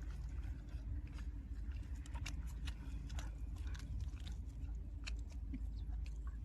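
A person chewing and biting food close to the microphone, with irregular short crunchy clicks, over a steady low hum.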